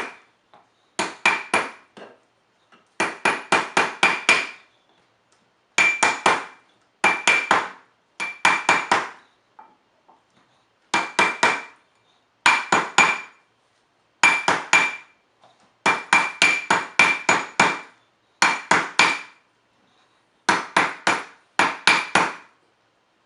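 A mallet taps a ring band on a ring mandrel to true it round. The taps come in quick bursts of about four, each blow with a light metallic ring, and the bursts repeat about a dozen times with short pauses between them.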